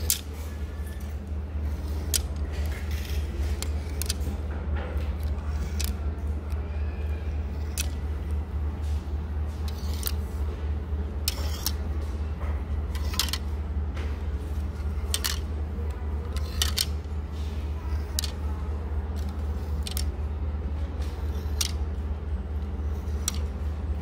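Plastic clothes hangers sliding and clicking against one another on a metal clothing rack as garments are pushed along, a sharp click every second or two. Under it runs a steady low hum.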